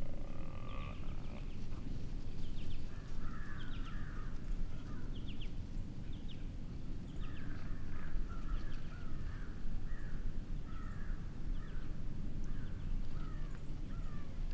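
Birds calling over and over in short harsh notes from about two seconds in, over a steady low rumble.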